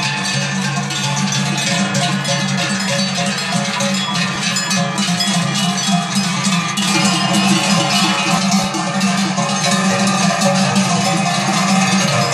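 Many large cowbells clanging irregularly as a herd of cows walks along, the strokes overlapping into a continuous jangle.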